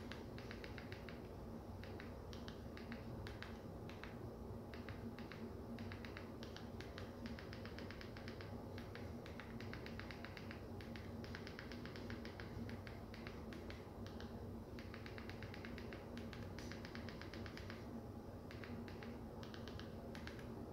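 Small plastic button clicks in an irregular run of several a second as a search term is typed in, over a steady low electrical hum.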